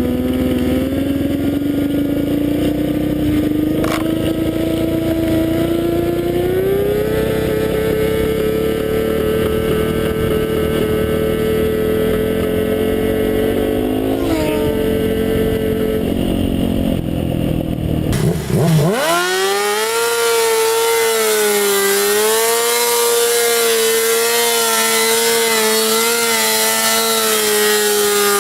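Inline-four sportbike engine at high revs under hard acceleration, its pitch climbing over the first several seconds and then holding at a steady high note. About 18 seconds in, the sound breaks off into another run: a sharp dip in revs, then a quick climb back to a steady high-revving note.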